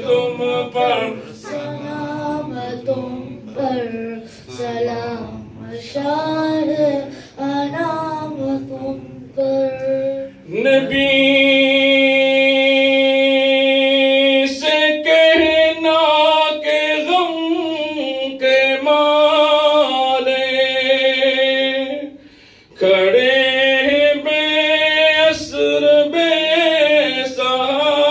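A man's voice singing an Urdu devotional salaam (naat) to the Prophet, unaccompanied, in long ornamented phrases. About eleven seconds in he holds one long steady note, and there is a brief pause for breath a few seconds before the end.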